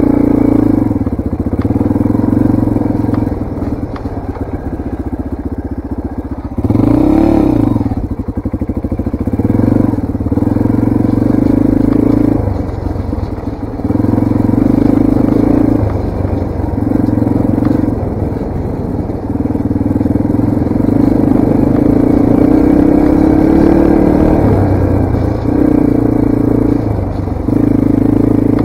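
Yamaha TTR230 dirt bike's single-cylinder four-stroke engine under way, the throttle opened and rolled off again and again so the engine note falls away and comes back several times. About a quarter of the way through there is one quick rev that rises and falls in pitch.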